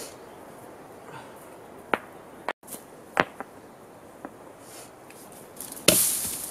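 Rounded stones knocking against each other as they are set into a ring on dirt: a few sharp, separate clacks. Near the end, a loud thump followed by a short burst of rustling.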